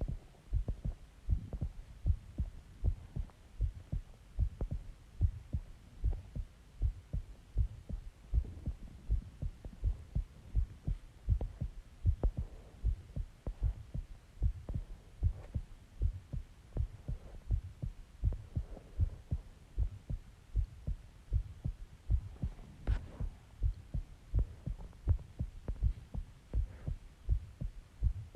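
A person's heartbeat picked up close to the body, beating steadily as a regular rhythm of low thumps.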